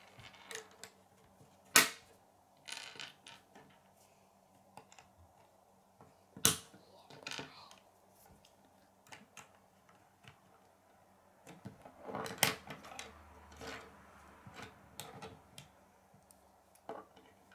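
K'nex plastic rods and connectors clicking as they are snapped together and handled on a wooden tabletop. There are a few sharp, separate clicks, a busier clatter about two-thirds of the way through, and small ticks in between.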